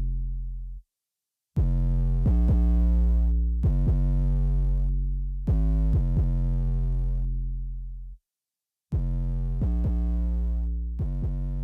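Background electronic hip-hop music: deep sustained synth bass notes over a drum-machine beat, dropping out to silence twice, about a second in and about eight seconds in.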